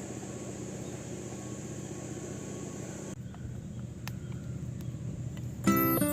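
Steady low outdoor rumble under a high, steady insect trill that stops about halfway through; a few faint sharp clicks follow. Near the end, background music with plucked guitar or ukulele notes comes in loudly.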